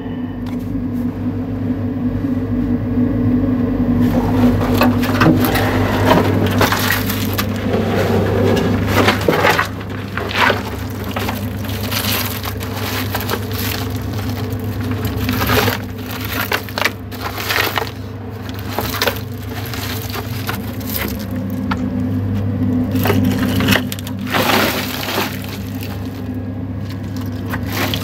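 Blast-loosened chunks of very hard fibre-reinforced concrete crunching and scraping as they are handled, with a steady low machine hum underneath.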